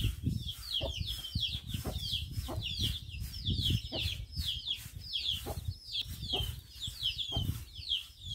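Young chicks peeping continuously, a rapid string of short, high, falling peeps, over the scrape and knock of a broom sweeping the concrete floor of the pen.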